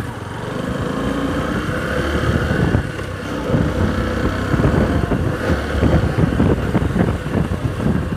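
Motorcycle engine running as the bike rides along, its note climbing over the first couple of seconds as it picks up speed, with wind on the microphone.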